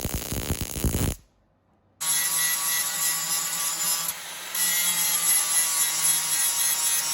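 Music for about the first second, cutting out briefly; then, from about two seconds in, the steady crackling hiss of an electric welding arc as cracks in a steel seat bracket are welded up.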